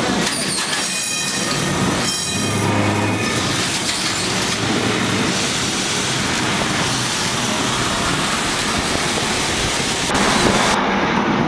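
Lisbon's vintage wooden tram running along its rails, heard from inside the car: a steady rumble and rattle of wheels and body, with a high whine of several tones in the first few seconds.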